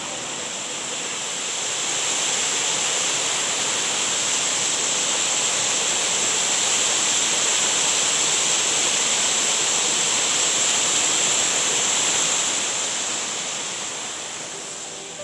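Shiraito Falls, a broad curtain of water falling in many thin streams over a low rock face, making a steady rushing hiss. It swells up in the first couple of seconds and fades away near the end.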